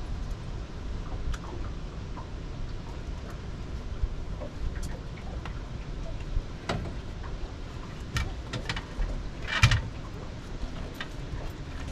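Scattered clicks and knocks from a landing net and a catfish being handled on a boat deck, with a louder short rattling clatter about three-quarters of the way through. A steady low rumble runs underneath.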